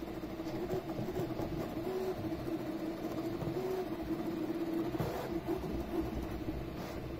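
Custom cross-XY 3D printer running a print: a steady motor hum whose pitch steps slightly up and down as the print head moves back and forth.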